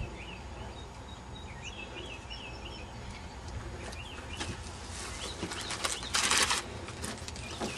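Birds chirping in quick repeated calls, with handling noises from a box of fireworks being unpacked; about six seconds in, a short loud rustle of packaging is the loudest sound.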